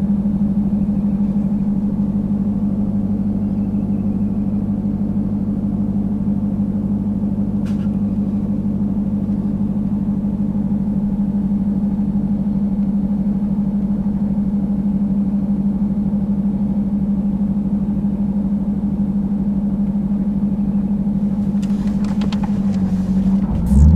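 Dodge Durango SRT Hellcat's supercharged 6.2-litre V8 heard from inside the cabin, a steady drone while cruising. Near the end the engine gets louder and its pitch rises and falls briefly, with a few clicks just before.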